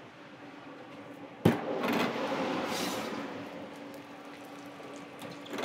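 Commercial kitchen oven door clicking open about a second and a half in, followed by a few seconds of rushing noise over the oven's steady hum; another click near the end.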